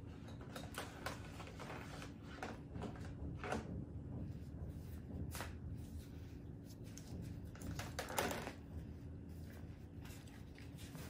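Faint scattered rustles and soft clicks of gloved fingers and a tissue handled against skin, over a steady low room hum.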